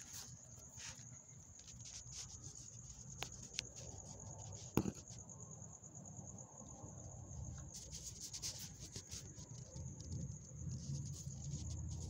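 Crickets trilling in a steady, high, rapidly pulsing chorus. Scattered light clicks and a low rumble of handling noise sit underneath, with one sharp click about five seconds in.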